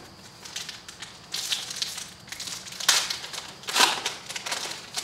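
Foil wrapper of a baseball card pack being torn open and crinkled, in several short rustling bursts, the loudest about four seconds in.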